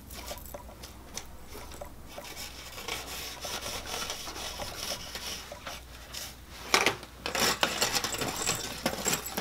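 Metal fork scraping and shredding baked spaghetti squash flesh into strands inside the shell, a rapid rasping with small clicks. Louder scrapes come about seven seconds in.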